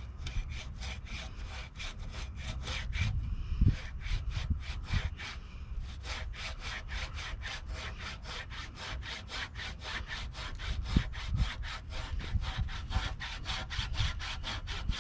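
Bladeless rasp plane with a cheese-grater face scraping back and forth across a wooden bench top, about three strokes a second. It pauses briefly a couple of times between about four and six seconds in.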